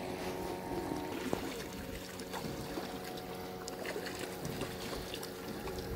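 Distant motorboat's outboard engine running at a steady drone as it crosses the river.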